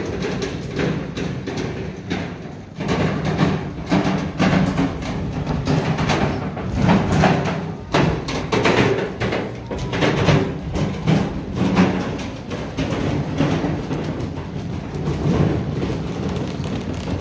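Music with percussion: a run of knocking, wood-block-like strikes over a steady lower part.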